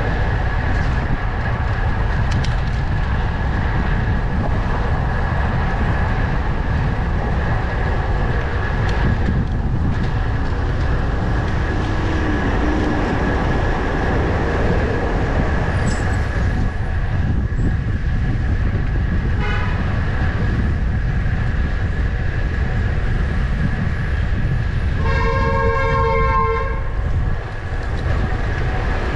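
Wind rushing over the microphone of a moving bicycle in city traffic, a steady low rumble. About 25 seconds in, a vehicle horn sounds once for about a second and a half.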